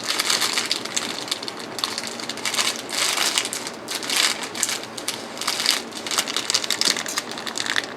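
Plastic bags of diamond-painting drills being handled and shuffled: a steady crackling rustle of plastic with many quick clicks from the small resin drills inside.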